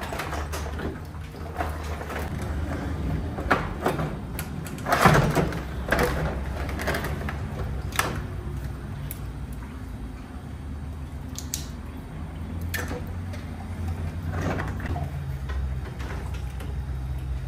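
Scattered knocks and clatters over a steady low hum, the loudest knocks about five to six seconds in.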